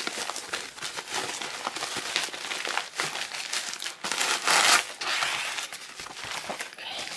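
Plastic courier mailer bag crinkling and rustling as it is handled and pulled open by hand. It is loudest about four and a half seconds in.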